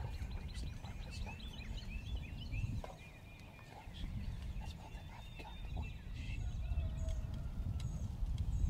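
Rio Grande wild turkey gobbling amid many songbirds chirping and whistling, over a low rumble of wind on the microphone.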